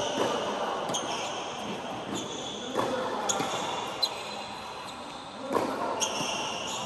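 Tennis ball knocks on an indoor hard court: several irregularly spaced bounces and racket hits, one sharper near four seconds in, in a large reverberant hall.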